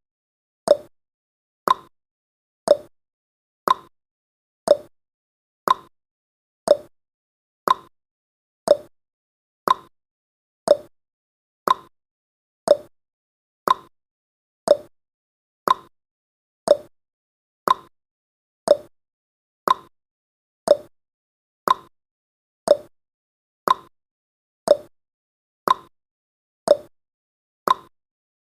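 Clock-style ticking sound effect of a countdown timer: one short, sharp tick each second, marking off the seconds as the timer counts down.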